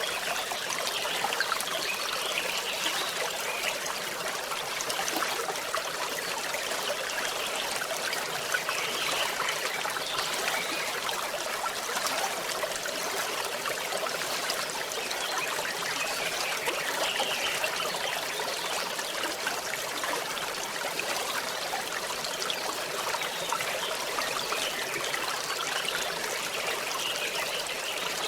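Small forest stream running and trickling steadily: an even, light splashing with little low rumble.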